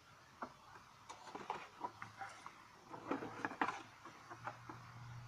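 Scattered light clicks and knocks of hand work on a truck's electrical parts, as a replacement central control unit is handled for fitting, with a faint low hum in places.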